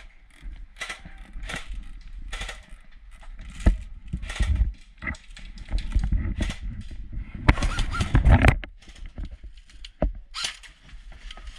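Gear rustling and irregular knocks on wooden floorboards as a player shifts and crawls prone, with heavier low rumbling handling noise in two stretches around the middle and later part.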